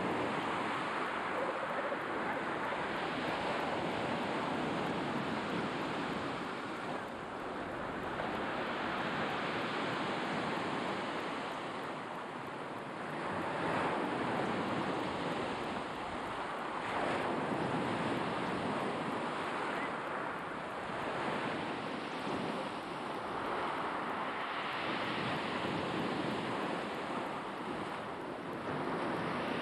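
Sea waves breaking on the shore, the wash swelling and falling back every few seconds.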